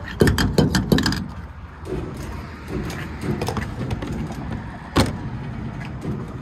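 A gas pump's fuel nozzle clicking and clanking in a quick cluster as it is handled at the filler neck. Then steady outdoor noise with one sharp click about five seconds in.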